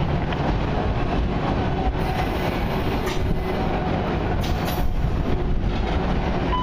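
Long freight train of autorack cars rolling slowly past on the rails: a steady rumble and rattle of wheels, with a few sharp clanks about three and five seconds in.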